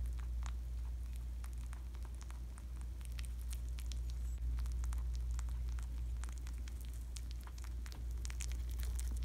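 Lop-eared rabbit chewing a soft banana: quick, irregular wet clicks of munching, over a steady low hum.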